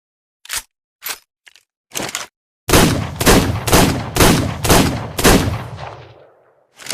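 Revolver sound effect: a few short clicks, then six gunshots fired about half a second apart, each with a low, rumbling tail that fades after the last shot. More clicks come right at the end.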